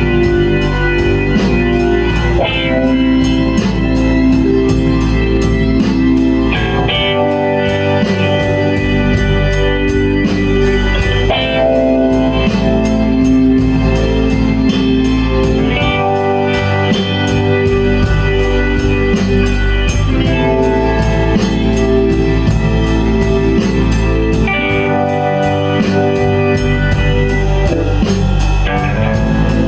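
Live blues-rock band playing an instrumental passage: electric guitar over a steady drum-kit beat.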